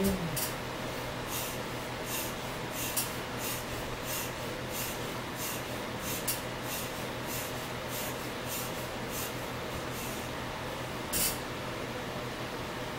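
Air pump inflating an exercise ball: repeated short hisses of air, about one or two a second, with the loudest one near the end.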